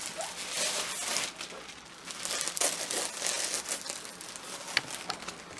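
Crepe paper crinkling and rustling as a roll of it is handled, in two louder spells with a few sharp ticks near the end.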